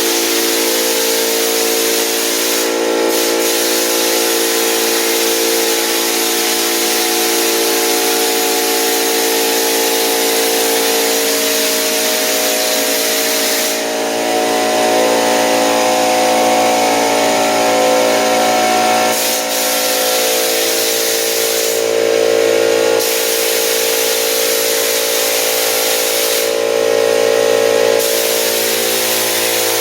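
Air-powered drywall texture hopper gun hissing as it sprays texture onto a ceiling, over the steady hum of the air compressor driving it. The hiss eases off briefly several times while the hum runs on.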